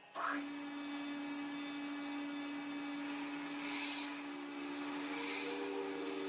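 A machine tool's electric motor starts just after the beginning and runs at a steady pitch. From about halfway, patches of higher hiss come and go over the hum.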